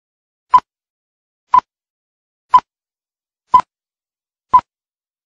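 Film-leader countdown beeps: five short beeps of the same pitch, one each second, with silence between them.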